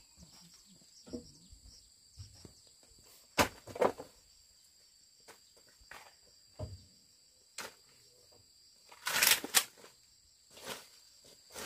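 Scattered knocks, rustles and scrapes of dry sticks and wood being handled and raked together on dirt, the loudest a short rustling scrape about nine seconds in. A steady high insect drone runs underneath.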